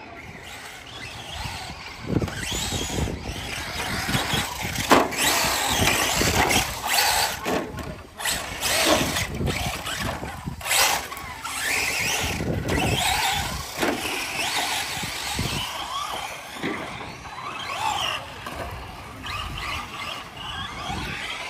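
Electric RC cars running on a dirt track, their motors whining up and down with the throttle over the scrabble of tyres on dirt, with a few sharp knocks.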